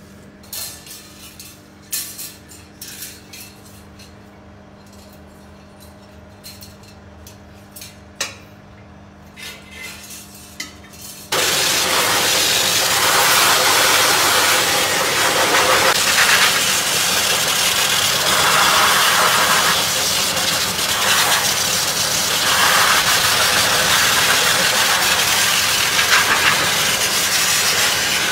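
Hose-fed pet blower dryer switching on abruptly about eleven seconds in, then running with a loud, steady rush of air as it blows on a wet cat. Before it starts there are only a few faint clicks and rustles.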